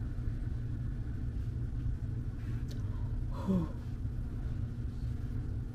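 A woman's short wordless 'ooh' with falling pitch about three and a half seconds in, over a steady low room rumble.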